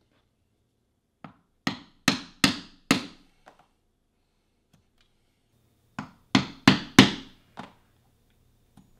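Mallet striking a pronged stitching chisel to punch stitch holes through layered leather on a hard board: sharp knocks in two runs, each a light tap, then four hard blows about a third of a second apart and a lighter one, the second run starting about six seconds in.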